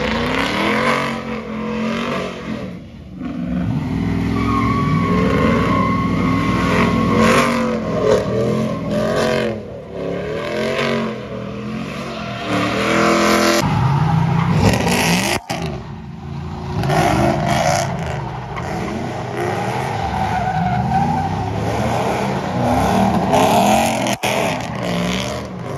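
Pickup truck engines revving hard and falling back again and again while the trucks spin donuts, tyres squealing and skidding on the asphalt. The squeal comes and goes over the engine noise.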